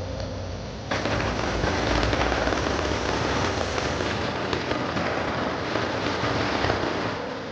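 Fireworks crackling: a dense, continuous spray of rapid sharp pops that starts suddenly about a second in and dies away near the end.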